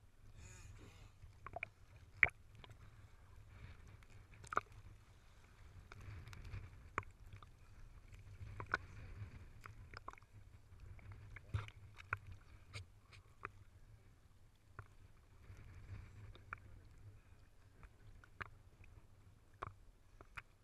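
Sea water lapping and sloshing around a camera held at the water's surface: a steady low rumble with scattered sharp clicks and small splashes.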